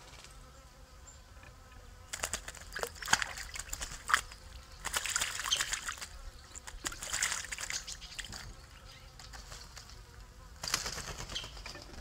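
Eurasian jay bathing in a shallow pond, splashing and fluttering its wings in the water in four short bursts, the last near the end.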